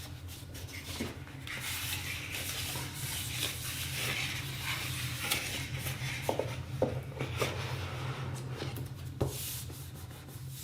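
Rustling and rubbing of something being handled, with a few light knocks and clicks, over a steady low hum.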